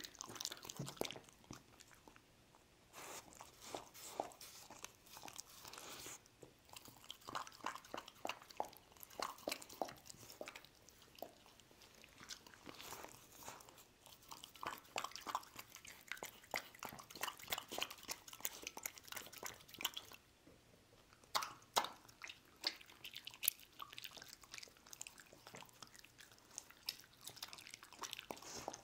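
A dog chewing sliced rice cakes from rice-cake soup: irregular chewing and mouth clicks, with two short pauses, one near the start and one about two thirds of the way through.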